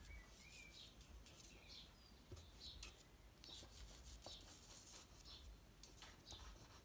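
Faint short strokes of a soft pastel stick rubbing across textured pastel paper, repeated many times.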